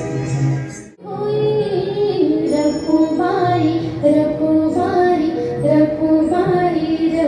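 Female voice singing a Marathi devotional song over steady instrumental accompaniment, with a brief break in the sound about a second in.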